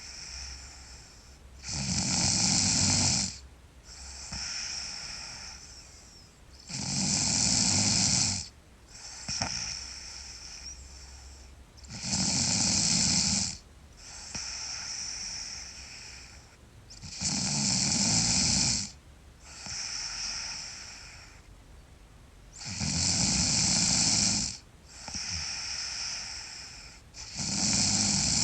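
A sleeping girl snoring loudly in a steady rhythm: a loud snore about every five seconds, each lasting a second or two, with a softer breath between.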